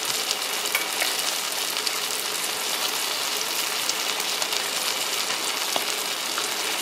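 Steak and gravy sizzling on a hot cast-iron sizzling plate: a steady hiss with scattered small crackles and pops.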